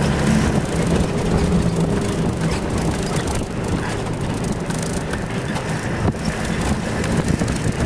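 A vehicle driving on a rough dirt road, heard from inside: a steady engine hum and road noise with frequent small knocks and rattles as it jolts over the surface.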